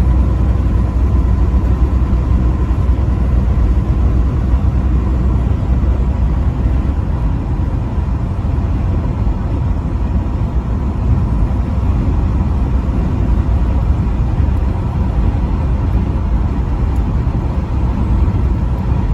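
Truck driving on the highway: a steady low rumble of engine and road noise, with a faint steady high tone above it.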